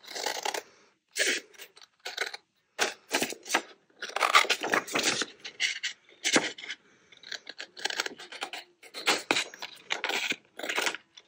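Scissors cutting through card backed with fabric: a long run of irregular snips and crunching cuts with short pauses between them.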